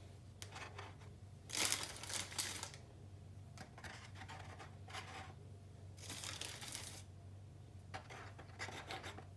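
Seed potatoes being handled: a plastic bag rustling in short bursts, loudest about a second and a half in and again around six and eight seconds, with soft knocks as potatoes are set into a cardboard egg box. A faint steady low hum runs underneath.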